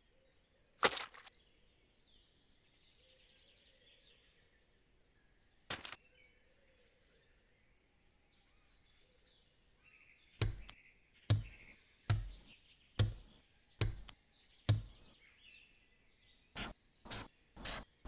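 Sticky notes slapped onto a cork board one after another, six heavy thuds about once a second, followed near the end by three quick red-marker strokes crossing notes out. Faint birdsong chirps underneath, with two sharp clicks earlier on.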